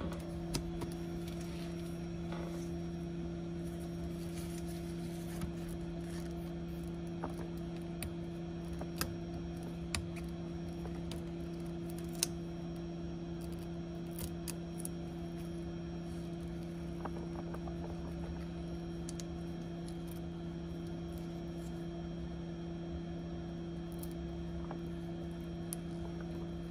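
A steady low electrical hum, with scattered small sharp clicks of metal tweezers working on the iPad's home-button flex cable and connectors.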